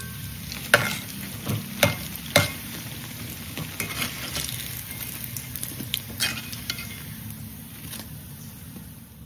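Battered crab sticks deep-frying in a wok of hot oil, sizzling steadily, with several sharp clicks of metal tongs and a slotted spoon knocking against the wok as the pieces are turned and lifted out.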